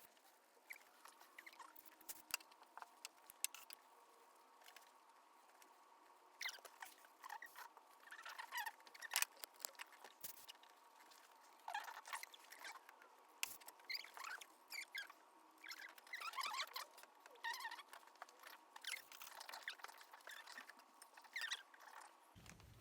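Faint, irregular scratching and scraping of hand-cleaning work on the engine's metal surfaces: many short strokes and clicks at an uneven pace.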